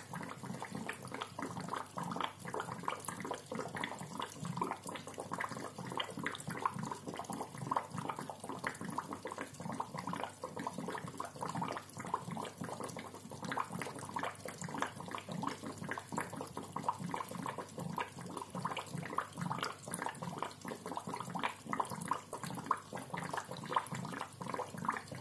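Aquarium bubbler gurgling: a steady, dense stream of small bubble pops without a break.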